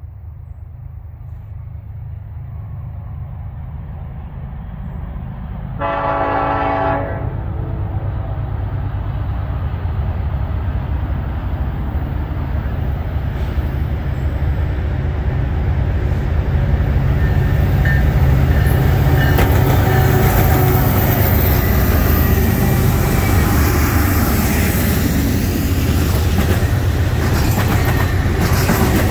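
Freight train led by an EMD SD70ACe diesel locomotive approaching and passing. A low diesel rumble grows steadily louder, with one short horn blast about six seconds in. Near the end the intermodal container cars roll past with wheel clatter.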